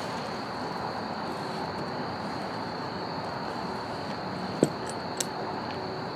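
Steady high-pitched trill of singing insects over a faint background hiss, with one short knock about four and a half seconds in and a smaller click just after.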